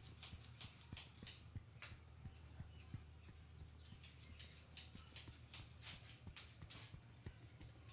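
Fingers rubbing and scratching through hair and scalp during a head massage: faint, irregular crackling rustles, over a low steady hum.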